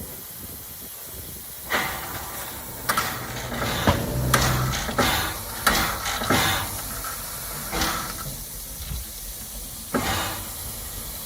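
Steam locomotive hissing, letting off steam in irregular bursts over a low rumble.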